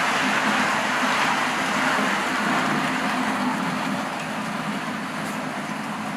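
A train running along its track: a steady rumble and rattle of wheels on rails that grows a little quieter about two-thirds of the way through.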